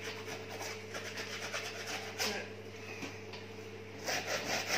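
Hand scraping of old caked grease and grime off a milling machine's cast-iron base: repeated irregular scratchy strokes, louder near the end, over a steady low electrical hum.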